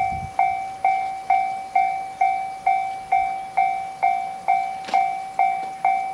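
Japanese railway level-crossing warning bell ringing, a clear electronic ding repeated evenly about twice a second, each fading before the next. It is the signal that a train is approaching the crossing.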